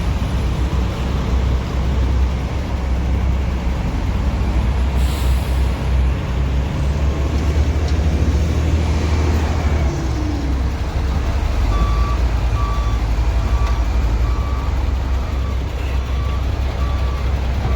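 Diesel engine of a heavy construction machine, such as a backhoe or wheel loader, running with a steady low rumble, with a brief hiss about five seconds in. From about two-thirds of the way through, its reversing alarm beeps at a steady pace, about three beeps every two seconds.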